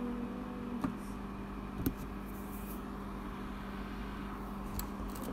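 Overhead projector's cooling fan and motor humming steadily, with a few faint clicks about one, two and five seconds in.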